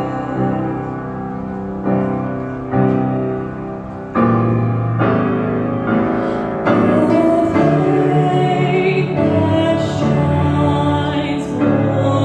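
Grand piano accompanying a mixed choir singing a hymn, with firm chords struck every second or so; the sung voices become fuller from about halfway through.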